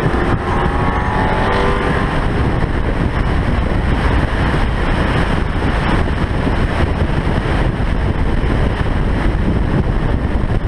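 Heavy wind and road roar from a car at highway speed, picked up by a microphone on the roof. In the first couple of seconds an engine note rises in pitch as the car accelerates, then fades into the steady roar.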